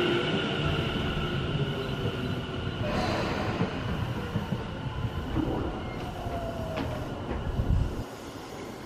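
Electric commuter train running away over the rails, wheel and rail noise with a high steady whine that fades as the last car moves off.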